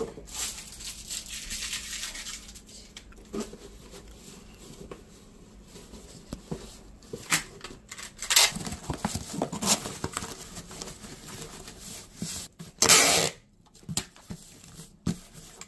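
Cardboard shipping boxes being folded and handled, with scraping, rustling and light knocks. Near the end comes one loud rip, like packing tape being pulled off to seal a box.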